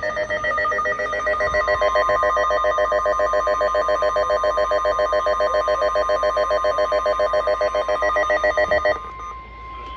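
Emergency alert tones between two weather warnings. A loud alarm trills rapidly and evenly, with a steady high tone near 1 kHz running underneath from about a second in; that pitch matches the NOAA Weather Radio 1050 Hz warning tone. The trill stops about nine seconds in, leaving the steady tone alone.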